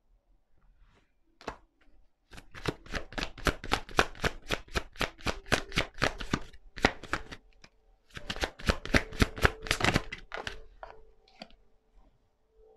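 Tarot deck being shuffled by hand: two bouts of quick, even card slaps with a short pause between them.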